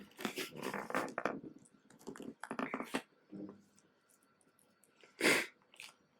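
Mini rabbit sneezing once, a short sharp puff about five seconds in that is the loudest sound here. Before it come a few seconds of rustling and crunching as the rabbit eats.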